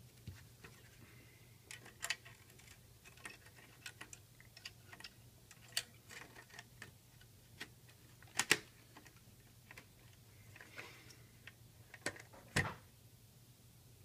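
Scattered light clicks and taps of plastic and metal as a car radio's front panel is pressed onto its metal chassis and its tabs slid into place, with a couple of sharper clicks past the middle and a duller knock near the end.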